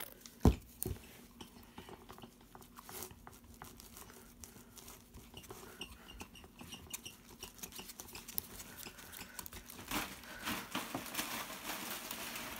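Slime mixture of glue, shaving foam, baking soda and contact solution being stirred in a bowl: many small wet clicks and taps of the utensil, with a louder knock about half a second in and busier, faster stirring near the end.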